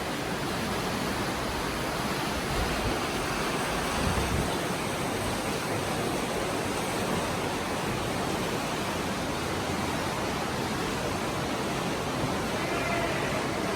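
Steady, even rushing noise with no distinct events, and a faint short tone near the end.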